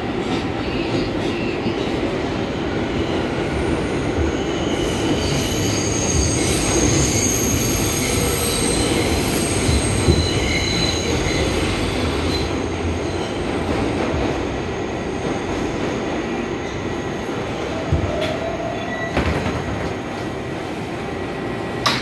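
R142A subway car running on the 4 line, heard from inside the car: a steady rumble of wheels on rail, with high-pitched wheel squeal from about five to twelve seconds in. A few sharp knocks come near the end as the train slows into a station.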